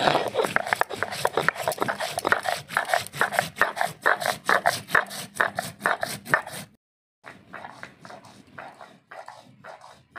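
Cumin seeds being ground on a stone slab with a cylindrical stone roller (shil-nora): a rhythmic gritty scraping of about four strokes a second. It stops abruptly about two-thirds of the way in and resumes more faintly after a short gap.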